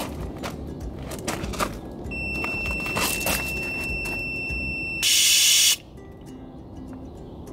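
Fumakilla Neko Mawaremigi cat-repellent sprayer triggered by its motion sensor. About two seconds in it sounds a steady, high electronic alarm tone for about three seconds, then fires its aerosol jet in a short, loud hiss lasting under a second.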